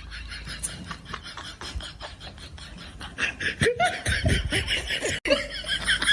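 A person laughing, growing louder from about three seconds in.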